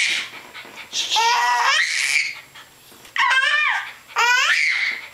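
A baby boy laughing in three high-pitched bouts of about a second each, with short pauses between.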